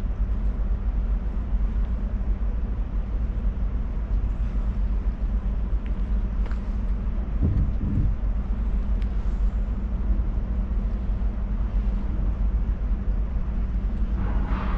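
Wind buffeting the microphone: a steady low rumble with a stronger gust about seven and a half seconds in.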